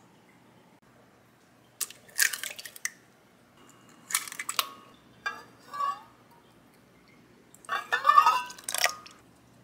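Egg cracked and dropped into a glass blender jar, heard as a few short crackling bursts, then a longer, louder splash near the end as milk is poured in from a metal cup.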